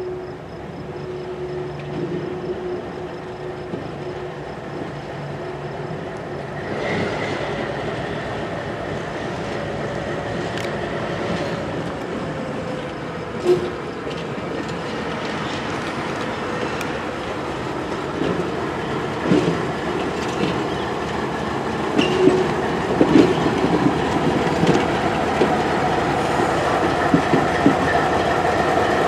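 Alco RS32 diesel-electric locomotive with its V12 Alco 251 engine running as it pulls a train past, growing steadily louder as it comes closer. In the second half its wheels click and clatter over rail joints and switches.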